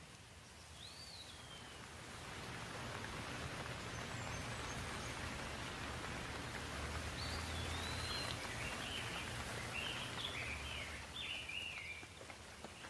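Steady rain hiss that swells after a couple of seconds and eases off near the end. A bird gives one curving call about a second in, and a bird sings a quick run of chirps in the second half.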